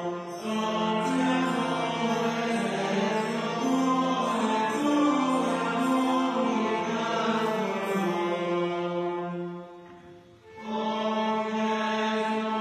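A wind band plays a slow novena melody in long held notes. It fades out about ten seconds in, then comes back in on a new sustained chord.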